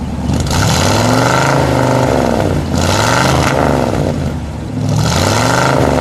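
1955 Ford Thunderbird's 292 cubic-inch Y-block V8 revved three times from idle through its stock exhaust, which exits through the rear bumper guards, the note climbing and falling back each time.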